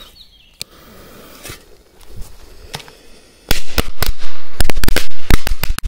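A machine-gun belt firecracker string going off: a fast, uneven run of loud sharp bangs, more than a dozen in about two and a half seconds, starting about three and a half seconds in.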